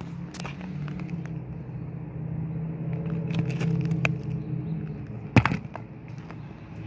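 A low engine-like hum that swells to its loudest about three to four seconds in and then eases. A single sharp knock comes about five and a half seconds in, the loudest sound, with faint scattered clicks around it.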